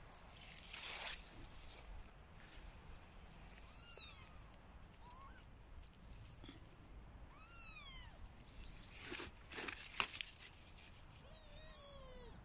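Kittens mewing: a few short, high-pitched calls that rise and fall, a few seconds apart, with two closer together near the end. Brief rustling noises come in between.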